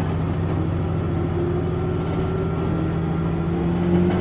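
Diesel railcar running along the line, its engine giving a steady low drone heard from inside the car. The drone swells slightly near the end.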